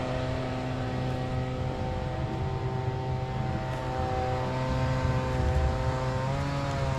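Cat D3 dozer's diesel engine running steadily, with a slight dip in pitch about six seconds in.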